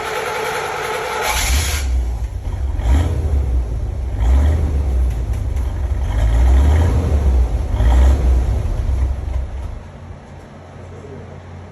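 1981 Corvette C3's 350 V8 running, a deep pulsing rumble that swells as it is revved in the middle and settles back to a quieter run near the end.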